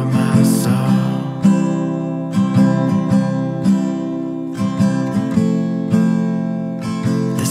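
Instrumental stretch of a gentle acoustic guitar song, no vocals: an acoustic guitar strumming chords about once a second and letting the notes ring.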